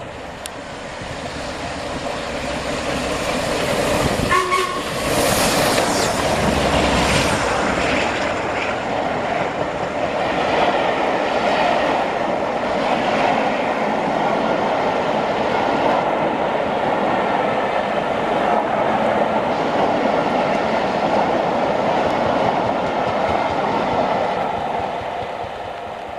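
Steam-hauled passenger train led by Royal Scot class steam locomotive 46115 passing, growing louder as it approaches, with a short whistle blast about four seconds in. The coaches then run past for about twenty seconds in a steady noise that fades near the end.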